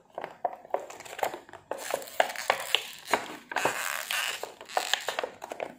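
Plastic toy packaging crinkling and crackling irregularly as a squishy toy figure is pulled and worked out of it.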